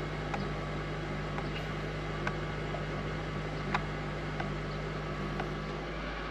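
Cabin hum of a parked Hyundai Tucson hybrid's 1.6 turbo engine idling steadily, with a few faint clicks.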